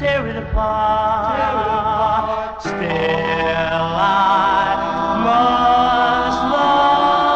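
Soul doo-wop song by a male vocal group: voices hold long harmony notes over the band, moving to a new chord every second or so.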